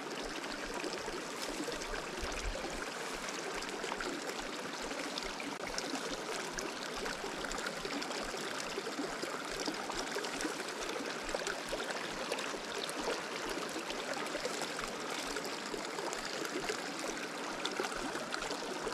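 Steady running water of a tiny creek flowing through a grassy meadow.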